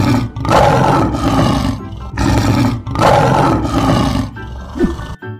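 A lion roaring: several long roars in a row with short breaks between them.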